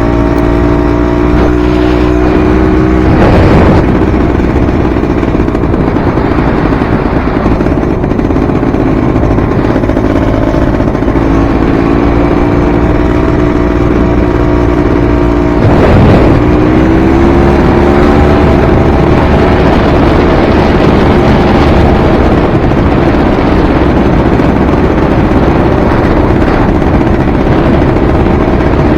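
Enduro dirt bike engine running loud and steady under throttle, its pitch breaking and shifting about three seconds in and again about sixteen seconds in, over constant low rumbling noise.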